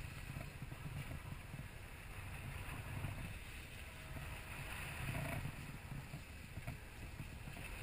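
Steady low rumble with a hiss above it: wind and boat noise aboard a sportfishing boat at sea.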